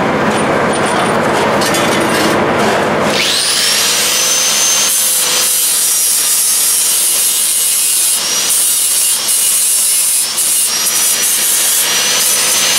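A loud, rough scraping noise, then about three seconds in a corded angle grinder spins up with a rising whine. It then grinds steadily on metal inside a transmission bellhousing, the whine and hiss dipping briefly a few times as the disc is pressed in.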